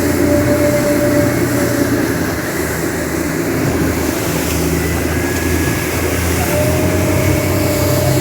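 Speedboat engine running steadily under way: a loud, low drone with a faint steady whine that drops out about two seconds in and comes back near the end.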